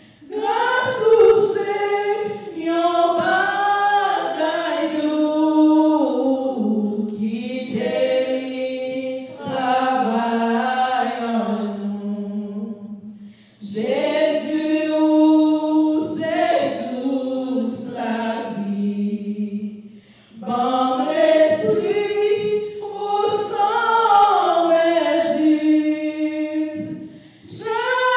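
A woman singing solo and unaccompanied, in long held phrases with short breaks between them.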